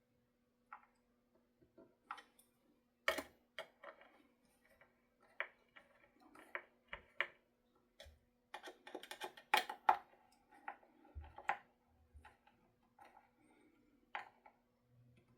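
Irregular small clicks, taps and light knocks of hands handling guitar parts and tools on a workbench, busiest in the middle, over a faint steady hum.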